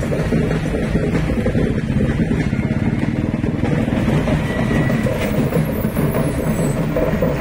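Road traffic: the engines of a bus and a lorry running close by, a steady low rumble.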